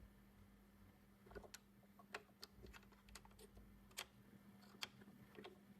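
Near silence broken by about a dozen faint, sharp clicks and taps, scattered irregularly, over a low steady hum.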